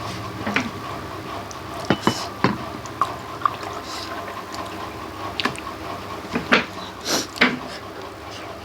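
A person eating: irregular wet mouth sounds, smacks and clicks of chewing, with the odd tap against the plate, over a steady faint hum.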